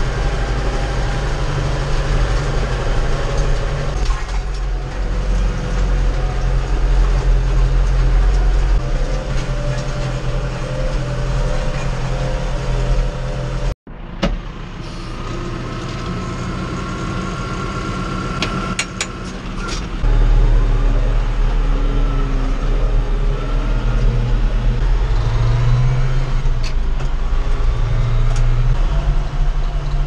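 John Deere 5085M tractor's four-cylinder diesel engine running steadily under load, heard from inside the cab. The sound breaks off for an instant about 14 seconds in, comes back quieter, and is louder again from about 20 seconds.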